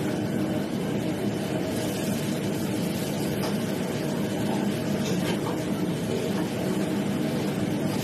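Steady rushing noise of commercial gas wok burners and the kitchen extraction hood running, with a few faint clinks of a metal ladle against a wok.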